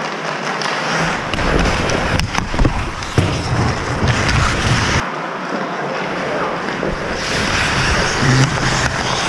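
Ice hockey play heard from a goalie's helmet camera: a steady scraping hiss of skates on the ice and rink noise, with a few sharp clacks of sticks or puck about two to three seconds in.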